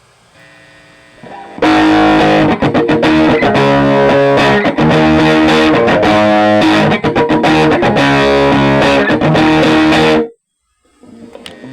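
Electric guitar played through a Marshall G10 Mk-2 practice amp with a distorted tone: a fast run of notes and chords that starts about a second and a half in and cuts off suddenly near the end. A faint amp hum sits under the quiet stretch before it.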